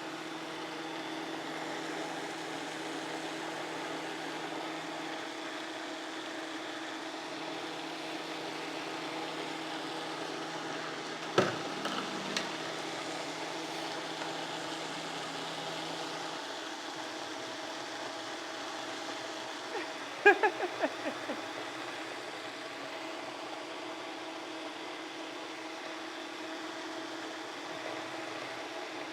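Countertop blender running steadily, blending pancake batter that is still a little clumpy. A sharp knock sounds about eleven seconds in, and a short run of clattering knocks about twenty seconds in.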